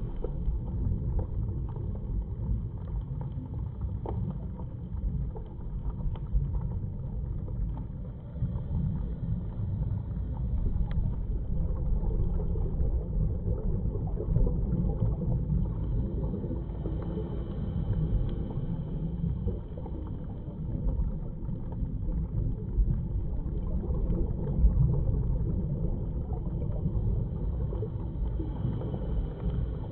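Steady low rumble of underwater noise picked up through a camera's waterproof housing, with no distinct events.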